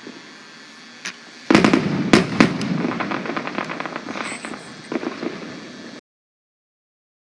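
Firework display: a single bang, then from about a second and a half in a dense run of sharp bangs and crackle. The sound cuts off abruptly about six seconds in.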